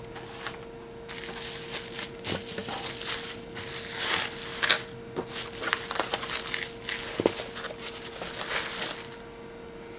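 Plastic packaging, pink anti-static bubble wrap and a static-shield bag, crinkling and crackling as it is unfolded and handled, from about a second in until near the end.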